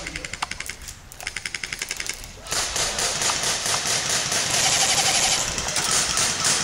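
Airsoft rifle firing on full auto: two rapid bursts of about a second each, a dozen or so shots a second. A louder, continuous rough rattling noise follows from about two and a half seconds in.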